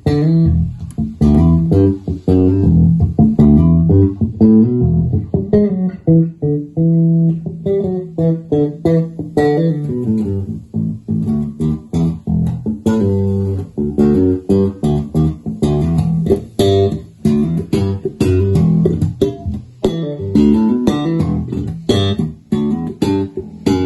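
Electric bass played through an Ampeg BA115 HP 220-watt combo amplifier with a single 15-inch speaker. The playing is quick runs of plucked notes, with short pauses between phrases.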